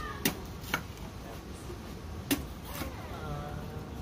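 Machete chopping into a green coconut: three sharp strikes, the last about two seconds in, with faint voices in the background.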